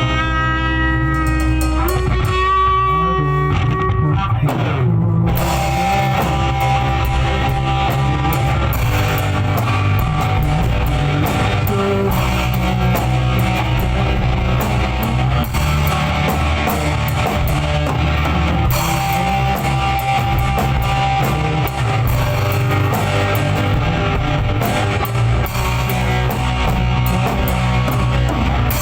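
Loud rock music with electric guitar and drum kit. It opens on held guitar notes, and the full band with drums comes in about five seconds in.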